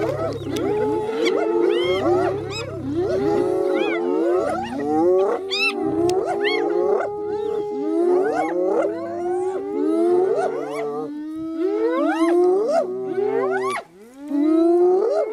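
A pack of spotted hyenas calling all at once: many overlapping high giggles, squeals and rising whoops, with a low growl beneath them.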